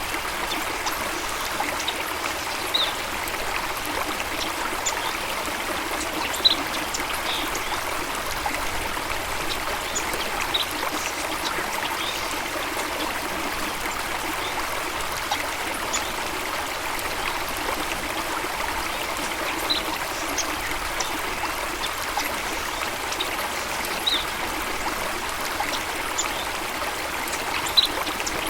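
Running water of a stream, flowing and trickling steadily. Short high-pitched blips sound every few seconds over it, the loudest about six seconds in and near the end.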